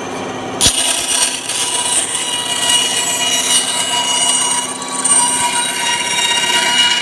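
Ryobi 9-inch band saw with a 2.5-amp induction motor running and its blade cutting a very tight curve in thin wood. A steady motor hum carries on underneath a hissing cutting noise, which comes in suddenly about half a second in.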